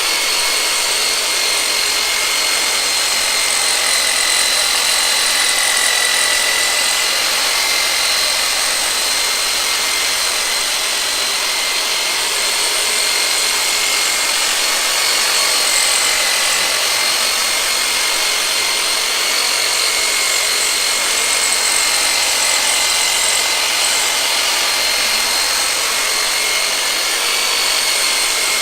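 Re-rigged Black & Decker power saw, fitted with a padded head, running continuously as a percussive massage tool to loosen tight back muscles. Its motor gives a steady whine that holds nearly the same pitch.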